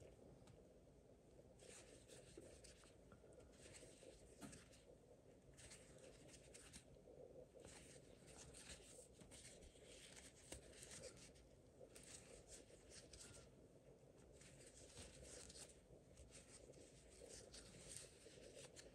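Faint scratchy rustling of a metal crochet hook drawing yarn through single crochet stitches, recurring every second or two as each stitch is worked.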